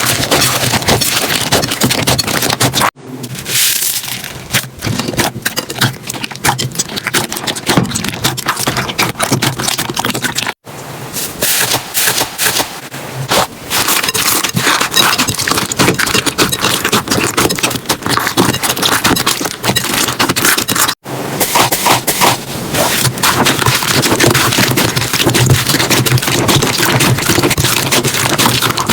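Slime being squeezed, poked and stretched close to the microphone, giving dense crackling and popping clicks. The sound cuts off abruptly and starts again about 3, 10 and 21 seconds in as one slime clip gives way to the next.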